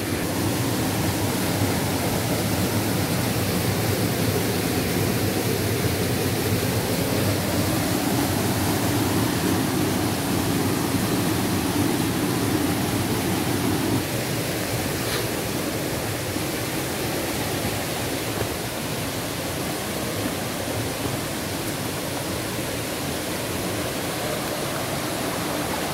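Waterfall of about ten metres pouring into a pool, a steady rush of falling water that eases slightly about halfway through.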